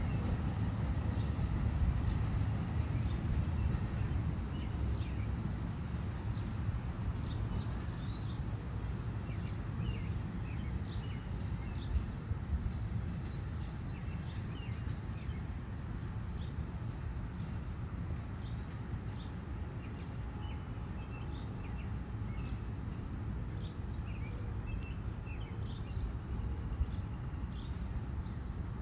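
NJ Transit Multilevel train hauled by an ALP-45DP locomotive pulling away: its low rumble slowly fades as it recedes. Birds chirp throughout.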